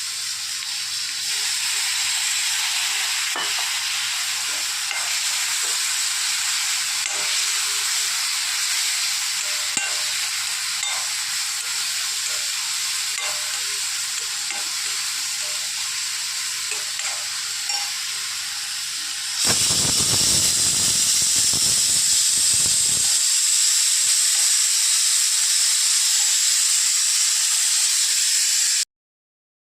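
Steady rushing hiss of water and wind from a fast boat ride. About two-thirds through it grows louder, with a few seconds of deep buffeting, and it cuts off abruptly near the end.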